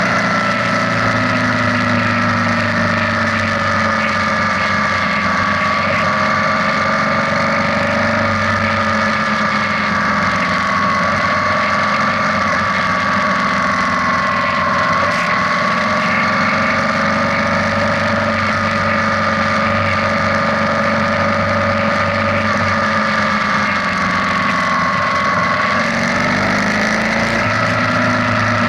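BMW R nineT's air/oil-cooled boxer twin running steadily at cruising speed, its note drifting slightly up and down with the throttle, over a continuous rush of wind and road noise.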